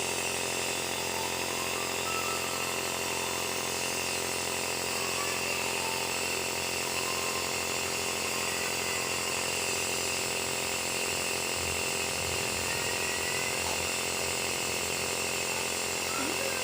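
Compressor nebulizer running with a steady mechanical hum while a nebulizing treatment is under way.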